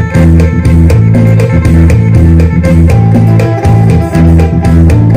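Electric guitar played in Isan phin style, a fast picked melody over low notes that repeat in a pattern about once a second.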